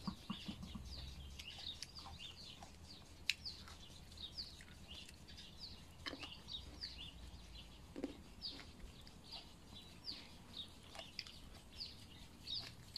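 Songbirds chirping faintly: a steady string of short, falling chirps, with a few soft clicks.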